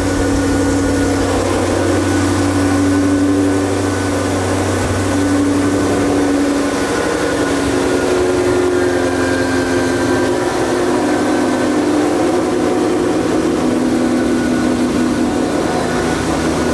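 Cammed Ford Shelby GT500's supercharged V8 idling steadily just after start-up.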